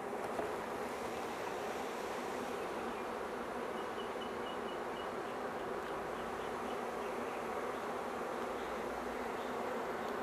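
Many honeybees from a package buzzing together in a steady, dense hum around the hive.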